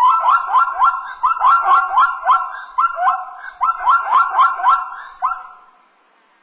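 A wild animal giving a rapid series of short, loud calls, each dropping quickly in pitch, about three a second in uneven clusters, fading away near the end.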